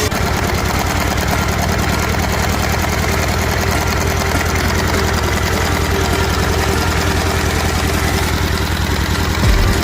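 A power tool's motor running steadily, with a fast even pulse and a deep rumble that grows heavier near the end.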